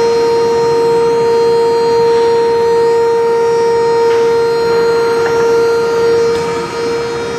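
Medium-frequency induction furnace humming loudly: one steady, high-pitched tone with a fainter overtone above it, from the furnace coil while it pours molten steel. The tone wavers and dips briefly near the end.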